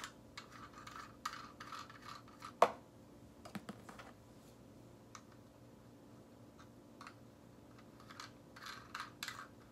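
Plastic parts of a universal dashboard mount being handled and turned: scraping and rustling, with one sharp click a little under three seconds in and a few light knocks about a second later.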